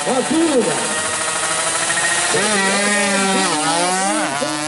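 Two-stroke Yamaha F1ZR drag bike, bored to 116 cc, launching from the line about halfway in and accelerating hard with a rising, buzzing exhaust; the pitch drops and climbs again at a gear change near the end.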